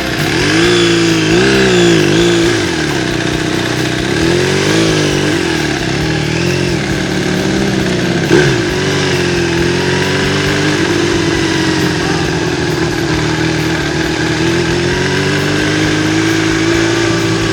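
Motorcycle engine under way. Its revs rise and fall several times, then hold steady at a cruise. A brief knock about eight seconds in is the loudest moment.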